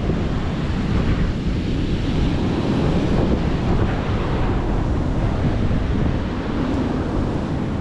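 Strong wind buffeting the microphone over the steady wash of rough Atlantic surf, a dense rumbling hiss that swells slightly and eases without breaks.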